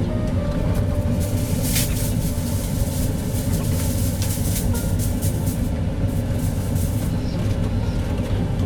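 Steady low rumble with scattered light clicks and clatter.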